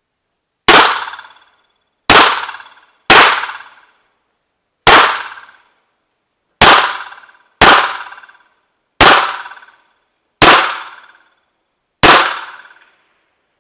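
Pistol shots from a compensated STI open-class race pistol: nine sharp single shots spaced about one to two seconds apart, each trailing off in a short echo, with a tenth shot right at the end.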